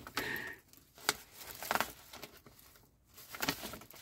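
Paper pages of a magazine being handled and turned, giving a few short rustles and crinkles.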